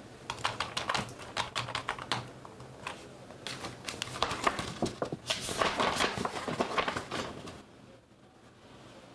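Computer keyboard being typed on in quick clicks for the first couple of seconds, followed by a few seconds of paper rustling as papers in a folder are handled and leafed through; quieter near the end.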